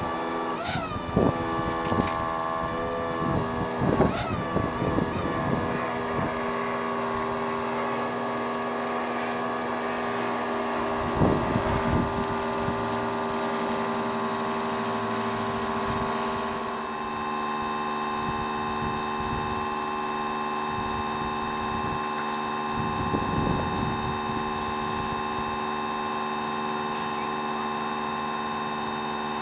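Hawker Hurricane's Rolls-Royce Merlin V12 engine running steadily, its pitch stepping down slightly a little past halfway. Several gusts of wind hit the microphone, mostly in the first few seconds and again twice later.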